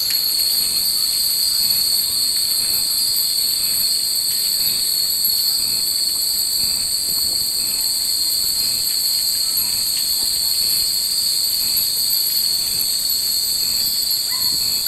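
Cicadas droning in the trees: a steady, high-pitched chorus that holds at one level throughout.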